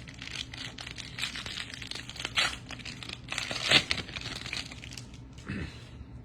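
Foil wrapper of a football trading-card pack crinkling and tearing as it is ripped open, with a couple of louder crackles partway through.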